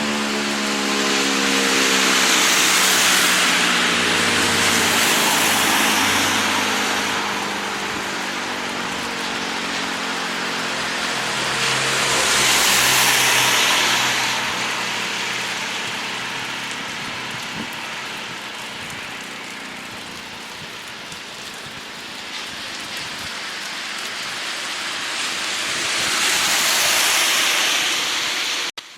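E57 electromechanical siren winding down after its steady all-clear tone, its pitch falling away and dying out in the first few seconds. Then a broad hiss swells and fades several times.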